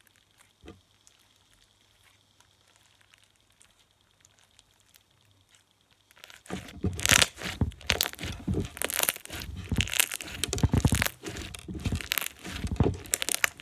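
Fishbowl slime, thick slime full of flat plastic beads, being squeezed and pressed in the hands, making a dense, crunchy crackling. It is almost silent at first, and the crunching starts about six and a half seconds in and keeps going.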